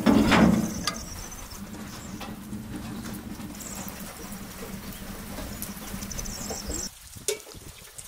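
Heavy cast-iron lid on a wood-burning stove clanks and scrapes open. Then the wood fire burns in the firebox with a steady low rumble. It drops away suddenly near the end.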